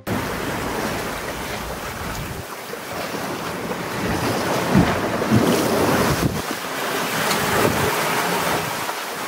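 A sailboat sailing fast through open-ocean swell: water rushing and splashing along the hull, with wind buffeting the microphone. The splashing surges loudest about five seconds in.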